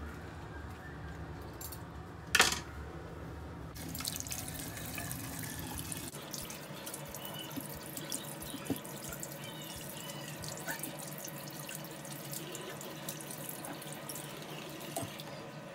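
Water running from a tap into a bathroom sink, starting about four seconds in. A single sharp click comes shortly before it.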